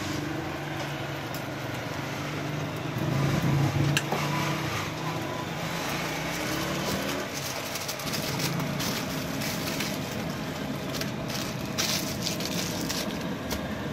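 Steady street noise with passing traffic and a low hum. Near the end comes a burst of crackly rustling as a burger is wrapped in paper.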